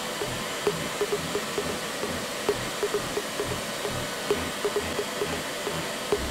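Handheld hair dryer blowing steadily on wet, freshly permed hair, with short irregular blips over the steady rush of air.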